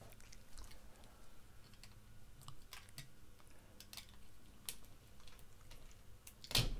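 Faint, scattered small clicks and handling noises of pliers gripping and working a battery cable's spade connector and its heat-shrink tubing, with one louder knock near the end.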